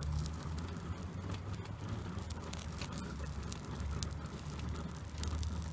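Coffee percolator bubbling in a steady low rumble, with scattered faint crackles from a small fire-starter stick burning on snow.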